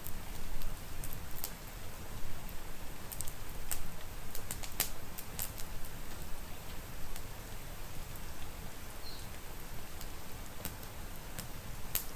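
Steady rain hiss mixed with a crackling wood fire: irregular sharp pops and clicks over a constant wash with a low rumble underneath.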